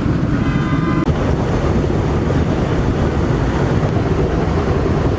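Steady loud rushing of water gushing from a fire hydrant sheared off by a crashed car. A brief high-pitched tone sounds in the first second.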